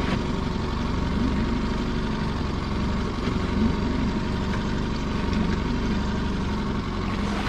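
Steady motor drone on a small boat while a lobster pot is being winched up from the seabed.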